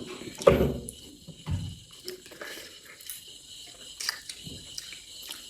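Close-up eating noises: a few short, wet bites and chews of chicken meat, loudest about half a second in, over a steady chirring of crickets.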